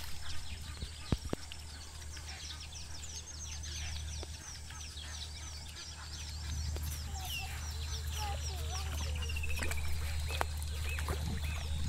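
Wild birds calling, a dense chorus of quick chirps that slide downward, with a few trills, over a steady low rumble.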